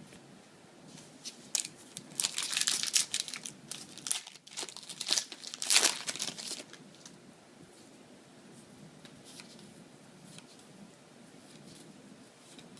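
Foil Yu-Gi-Oh! booster pack wrapper crinkling and being torn open. Loud crackling runs from about a second and a half in to about seven seconds in, followed by faint rustling.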